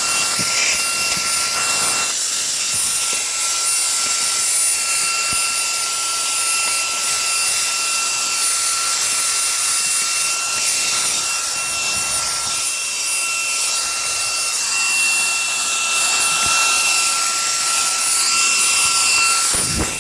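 Reikiya HV-C11 cordless handheld vacuum running steadily while cleaning a car seat: a rushing hiss of air with a steady high motor whine.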